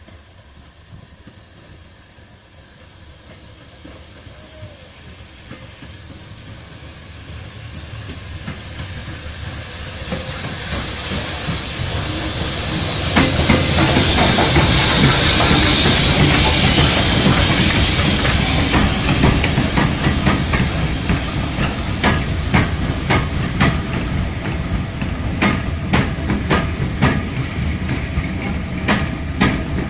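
Rebuilt Bulleid West Country class steam locomotive approaching and running past, growing louder with a strong hiss of steam as the engine goes by. From about two-thirds of the way in, its coaches rumble past with regular clicks of the wheels over the rail joints.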